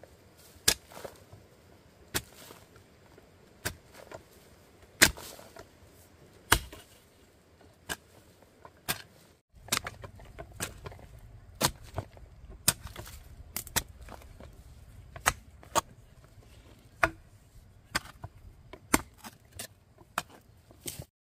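A blade chopping: a series of sharp single strikes one to two seconds apart, briefly broken a little under halfway, then coming somewhat faster.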